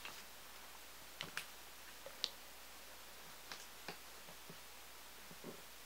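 Faint pen and paper handling while writing: a handful of light clicks and taps at irregular intervals.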